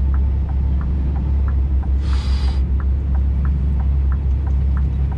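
Scania truck's diesel engine droning steadily under load as it climbs a slippery snow-covered hill, heard inside the cab. The hazard-light flasher ticks evenly about three times a second, and there is a brief hiss about two seconds in.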